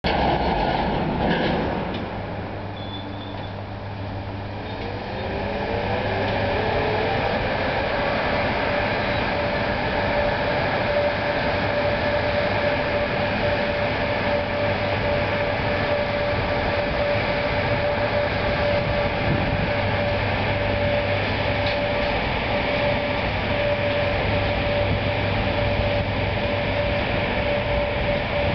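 Pair of VR Sr1 electric locomotives hauling a freight train away. A low steady hum, with a whine that rises in pitch about five seconds in and then holds steady.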